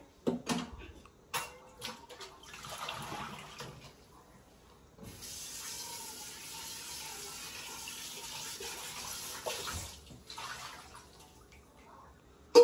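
Kitchen tap running steadily into a large metal cooking pot in the sink for about five seconds, then shut off, as the pot is rinsed. A few knocks of cookware come first, and one sharp, loud clank lands at the very end.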